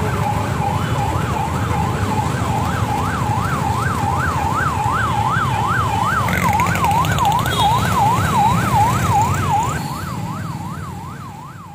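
Police vehicle's electronic siren on a fast yelp, its pitch sweeping up and down about three times a second over low engine and traffic rumble. It fades out near the end.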